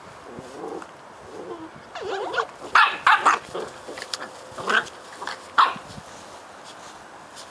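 Two nine-week-old Cardigan Welsh Corgi puppies play fighting: low growls at first, then from about two seconds in a string of high-pitched yaps and barks, the loudest bunched near the middle. They stop about six seconds in.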